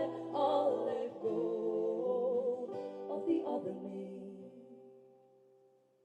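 Closing bars of a live acoustic song: strummed guitar chords and a held sung note that bends briefly in the first second, then the guitar rings out and fades away to near silence over the last couple of seconds.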